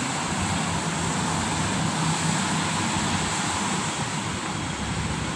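Steady street noise of traffic on rain-wet roads: an even hiss with a low engine hum underneath.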